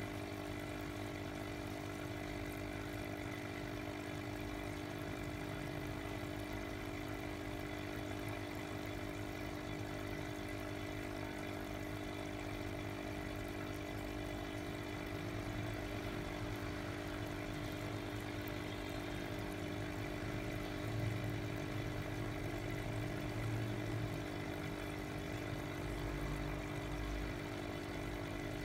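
Small aquarium pump running with a steady electric hum as it aerates a goldfish bowl.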